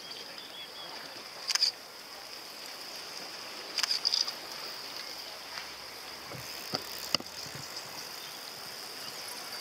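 Open-air sound of bicycles riding past on a tarmac path: a steady high hiss, short high chirps about one and a half and four seconds in, and two sharp clicks about seven seconds in as riders pass close.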